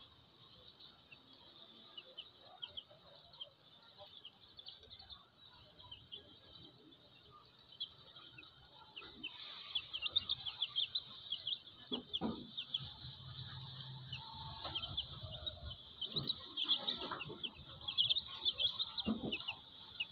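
Chicks peeping in quick, high, short notes while sheltering under a brooding hen. The peeping grows busier and louder about halfway through, and in the second half the hen gives soft, low clucks and a few rustles.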